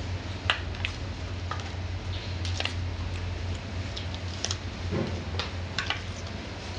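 Chocolate-coated almonds popping out of a mould and dropping onto a stainless steel table: scattered light clicks and taps, a few to a second. A steady low hum runs underneath.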